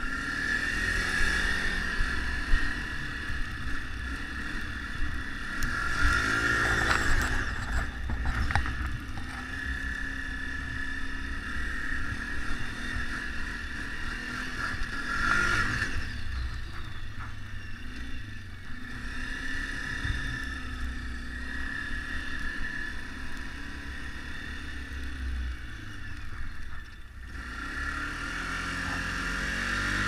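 Can-Am Outlander L 450 ATV's single-cylinder engine running under throttle while riding through snow, its revs rising and falling several times.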